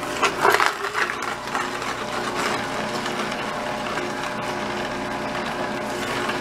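Vertical slow juicer running steadily, its auger crushing chunks of fruit and carrot fed into the chute. Loud crunching comes in the first second, then lighter crackling over the motor's steady hum.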